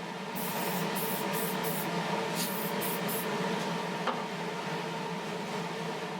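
Aerosol spray-paint can sprayed in about seven short hissing bursts in the first half, touching up bare metal with primer or paint. A steady hum runs underneath.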